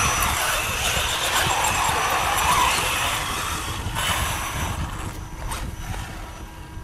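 Brushless electric RC buggies running on sand: motor whine and knobby tyres churning and throwing sand. The sound dies down over the last couple of seconds as the cars slow.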